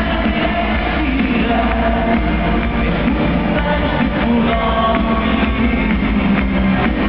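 A live band playing loud, with a male singer singing into a microphone over drums and guitars.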